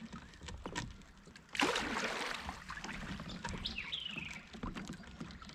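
A single sudden splash on the water about a second and a half in, fading over about a second, with a songbird chirping a short falling call a few seconds later.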